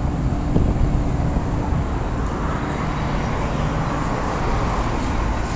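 Outdoor central air-conditioner condensing unit running in cooling mode: a steady low drone of the compressor and condenser fan. A faint hum tone fades out about two seconds in, and there is a single light click about half a second in.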